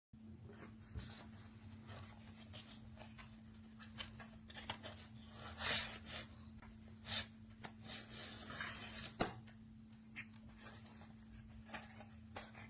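Faint handling noises of small objects: scattered clicks and short rubbing or scraping sounds, a few louder ones in the middle, over a steady low electrical hum.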